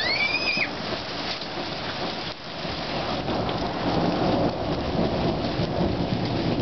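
Hailstorm: a steady, dense patter of falling hail and rain, with a low roll of thunder building in the second half. A short high squeal rises and falls at the very start.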